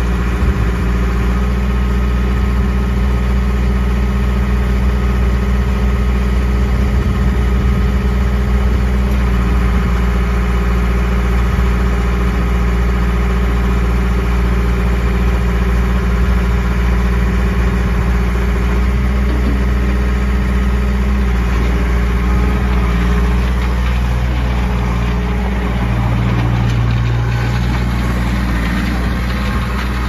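Case 1840 skid steer loader's Cummins diesel engine idling steadily, with a low hum that grows stronger briefly near the end.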